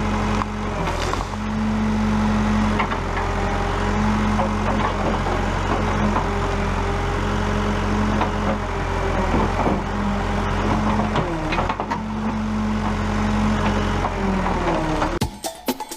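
JCB backhoe's diesel engine running steadily, with a higher tone that cuts in and out every second or two and a few knocks. Banjo music starts abruptly near the end.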